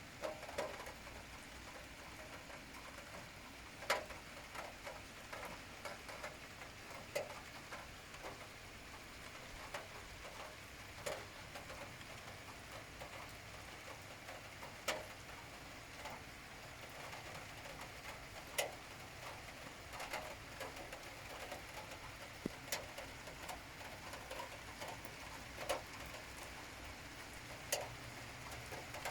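Steady rain hissing, with heavy drops striking a hard surface in irregular sharp taps.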